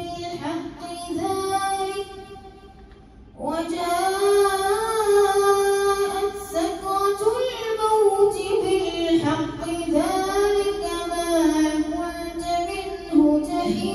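A boy's voice reciting the Quran in a slow, melodic chant into a microphone, leading worshippers in prayer. Long held phrases bend up and down, with a short pause for breath about two seconds in.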